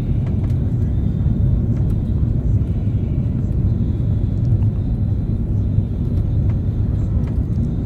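Steady low rumble of an Airbus A330 airliner heard from inside the cabin: engine and airflow noise.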